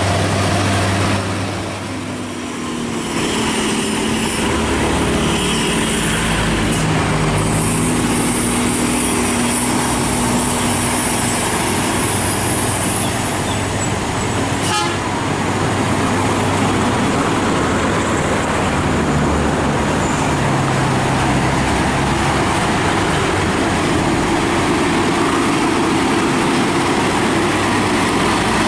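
Heavy diesel cargo trucks working up a steep hairpin climb, their engines running loud and steady under dense traffic noise, with a horn sounding.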